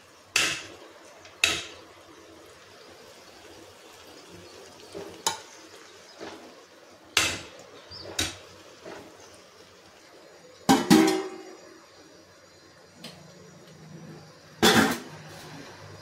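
Metal cookware clanking: an aluminium pot and metal utensils knocked against each other and the steel stove top. There are about seven separate sharp knocks, the biggest a short rattling clatter about eleven seconds in.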